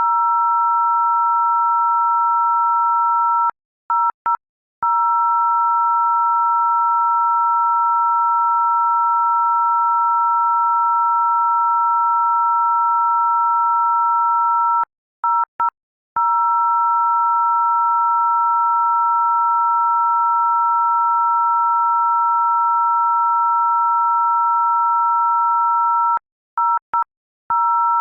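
A loud, steady electronic tone made of two pure pitches sounding together, broken three times by a quick stutter of short dropouts before carrying on unchanged.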